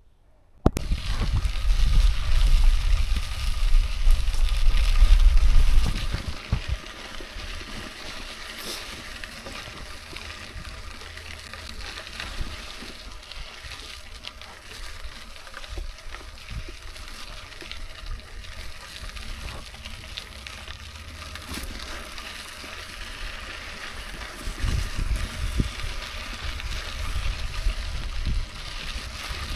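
Sea water sloshing and splashing as a steady wash of noise, with a heavy low rumble for the first few seconds and again near the end.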